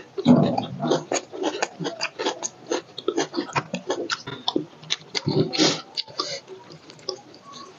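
Close-miked chewing and lip-smacking of people eating roast chicken with their hands: many small wet clicks and smacks at an irregular pace. There is a loud low thump just after the start and a louder, hissier mouth noise about five and a half seconds in.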